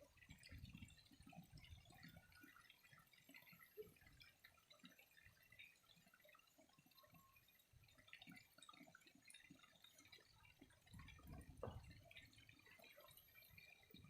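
Faint water trickling and dripping, with scattered small drips and patter. A soft low rumble comes about a second in and again near the end.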